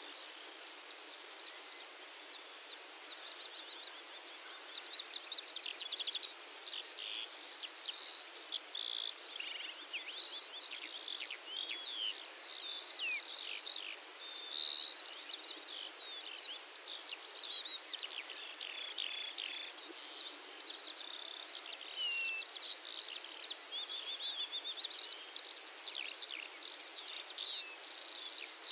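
Dawn chorus of songbirds at sunrise: many rapid chirps, trills and warbling phrases overlapping almost without pause, over a faint steady hiss.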